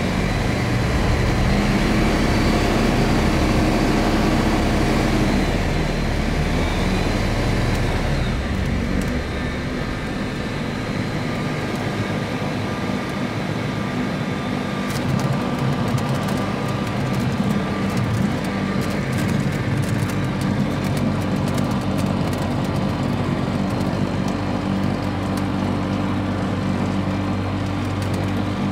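Light propeller aircraft's engine heard from inside the cockpit on the landing approach: the engine note drops and quietens about six seconds in as power comes off, then holds steady at low power. From about fifteen seconds in, frequent short clicks and knocks come in as the wheels run on a grass airstrip.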